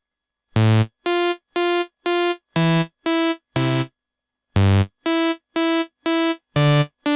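Synthesized keyboard ringtone tune: short, separate staccato notes about two a second, some doubled by a lower bass note, with a brief pause about four seconds in before the phrase starts again.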